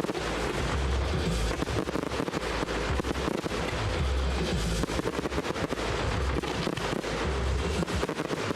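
Fireworks display: a dense, continuous run of rapid crackling reports and bangs, with a deep low rumble coming and going.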